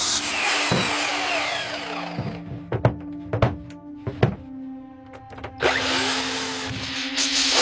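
Hand-held power tool running with a harsh hiss, cutting off about two seconds in. A handful of sharp knocks follow, and the tool starts up again near six seconds. Background music with a steady held tone plays underneath.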